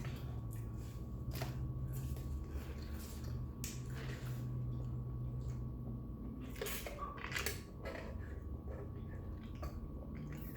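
Close-miked eating sounds: chewing and smacking on a mouthful of fried chicken sandwich, with scattered sharp clicks and a few crackly strokes over a steady low hum.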